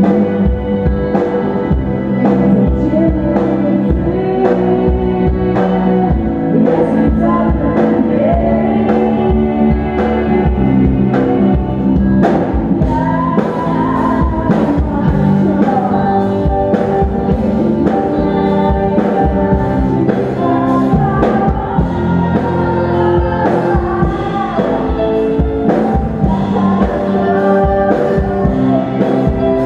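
Live rock band playing: drum kit, electric guitars, bass guitar and keyboard, with a voice singing over it.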